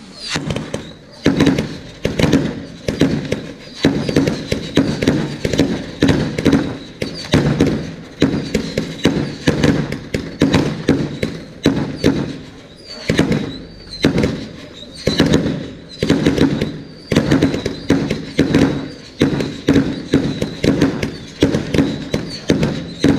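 Fireworks going off in a dense, unbroken barrage: sharp bangs and crackles, several a second.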